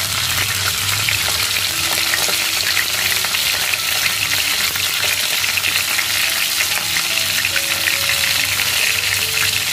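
Whole climbing perch deep-frying in a pan of hot oil: a steady, dense sizzle full of small crackles.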